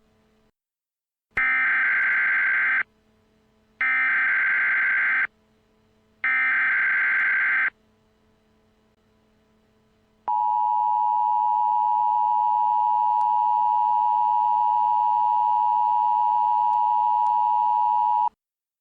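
Emergency Alert System SAME header: three identical bursts of high-pitched warbling data tones, about a second and a half each. After a short pause comes the EAS attention signal, a steady two-tone beep held for about eight seconds, which marks the start of an emergency broadcast message.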